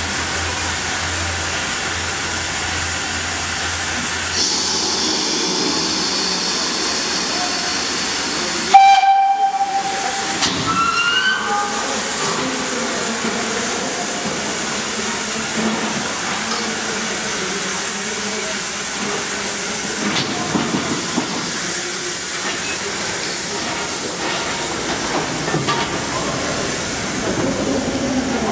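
GWR 4575-class 2-6-2 tank locomotive No. 5521 standing in steam, with a steady loud hiss of escaping steam. About nine seconds in, a short, sudden steam whistle blast cuts through.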